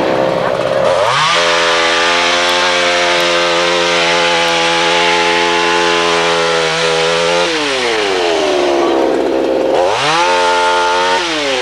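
Chainsaw revved up to full throttle about a second in and held there for about six seconds, then dropping back to idle; near the end it is revved again briefly and falls back to idle.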